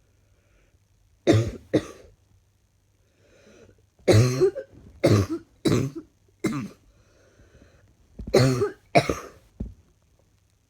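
A woman coughing in short groups with voice in each cough: two coughs, a breath in, four more, then two with a small one after. It is a slightly chesty morning cough.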